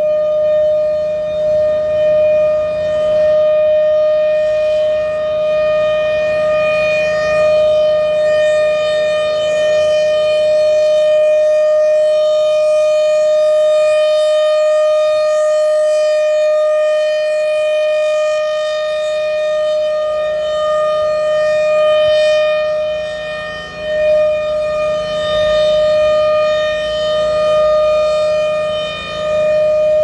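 1956 Federal Sign & Signal Thunderbolt 1000 Series A1 siren, a blower-driven chopper siren, sounding a loud steady-pitched alert tone. Its brightness fades and returns as the horn slowly rotates, dullest when it points away near the middle.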